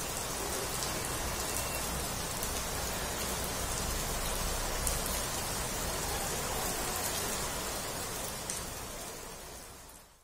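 Steady heavy rain falling on water, a dense hiss of many drops splashing on the surface; it fades out near the end.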